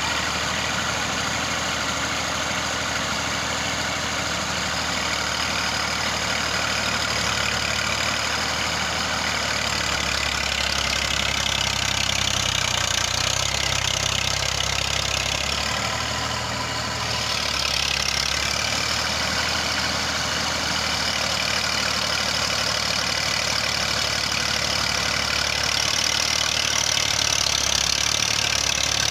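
Massey Ferguson 240 tractor's three-cylinder diesel engine running steadily under load as it pulls a heavily loaded straw trolley slowly through mud. Its level dips briefly about halfway through.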